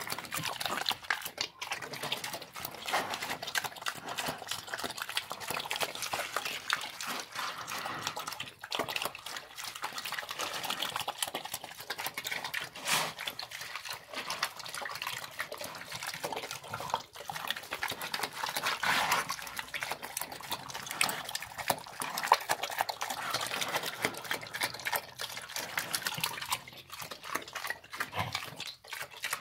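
A pig eating wet kitchen-scrap slop from a trough: continuous, irregular wet chomping and slurping.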